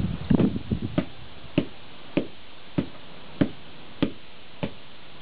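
A hammer repeatedly striking C batteries on a concrete sidewalk: a jumble of knocks in the first second, then single sharp blows at a steady pace of a little under two a second.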